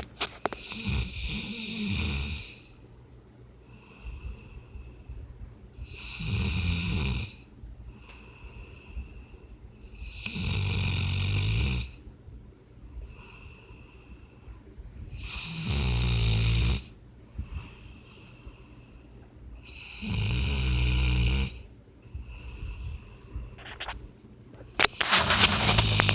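A sleeping puppy snoring like a person, in a steady rhythm. A loud, buzzing snore comes about every four to five seconds, with softer breaths in between.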